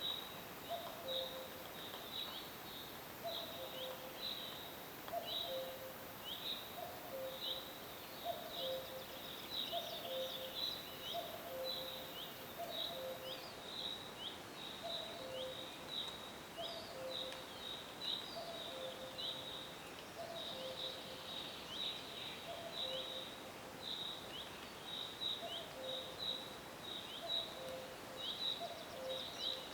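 Cuckoo calling its two-note falling 'cu-coo' over and over, about once every one to two seconds, with short high chirps from other small birds and a steady forest hiss behind it.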